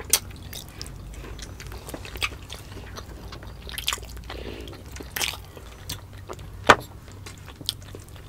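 Close-miked wet eating sounds from saucy balbacua beef stew: chewing, lip smacks and irregular clicks, with one sharper smack about two-thirds of the way through.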